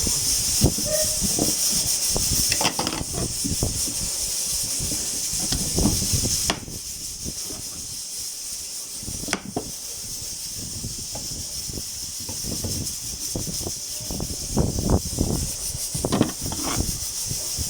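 Stovetop pressure cooker steadily hissing steam under pressure, with scattered light knocks and kitchen clatter beneath it.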